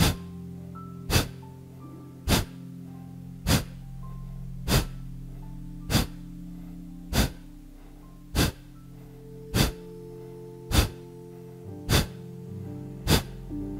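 Sharp, forceful breaths pushed out at an even pace, about one every 1.2 seconds, as in kapalabhati breathing. Steady background music plays underneath.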